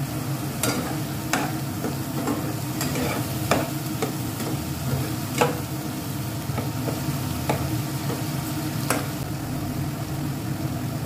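A spatula stirring and scraping a thick onion, tomato and sesame paste frying in oil in a non-stick pan, the paste sizzling. Irregular sharp knocks and scrapes of the spatula on the pan sit over a steady low hum.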